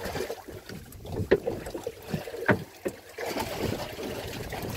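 A few sharp knocks and bumps on the deck of a small wooden boat, the two loudest about a second and two and a half seconds in, with a steady rush of wind and sea after about three seconds.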